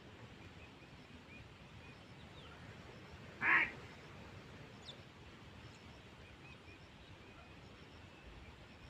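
One short, loud call about three and a half seconds in, over faint open-air background with a few small bird chirps.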